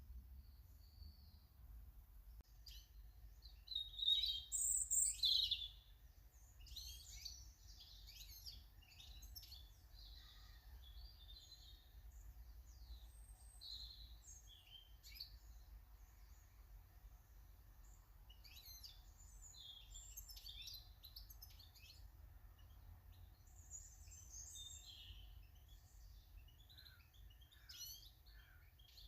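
Small garden birds chirping and calling in quick short notes, with a louder burst of chirps about four to six seconds in, over a low steady rumble.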